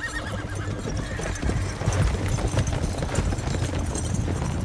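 Horses' hooves clopping in a dense, uneven patter as a group of mounted riders moves off, with a horse whinnying at the start, its call wavering and fading within about a second. A low steady drone runs underneath.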